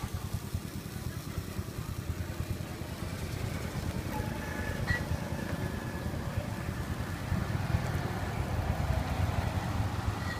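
Low, uneven rumble of motorbike engines in passing street traffic.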